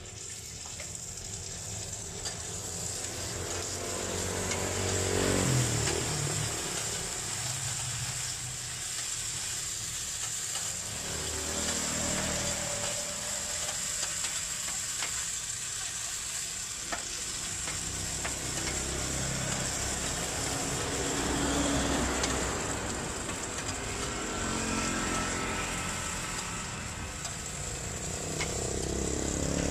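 Sliced onions sizzling on a hot flat-top griddle while a metal spatula stirs and scrapes them across the steel, over a steady low rumble.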